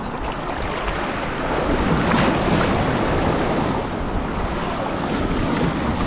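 Small ocean waves breaking and washing through the shallows right around a camera held at water level, a steady surf wash that swells louder about two seconds in, with wind buffeting the microphone.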